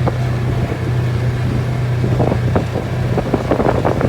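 Motor vehicle engine running at a steady drone, with wind buffeting the microphone.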